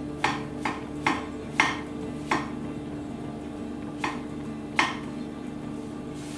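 Chef's knife slicing button mushrooms on an end-grain wooden cutting board: seven sharp taps of the blade on the board, unevenly spaced, with a pause of nearly two seconds midway.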